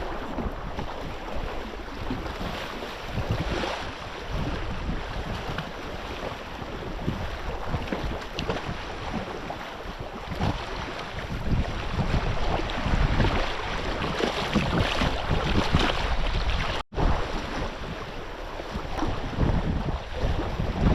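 Wind buffeting the microphone over the wash of water and waves, gusting unevenly. The sound cuts out completely for a split second about three-quarters of the way through.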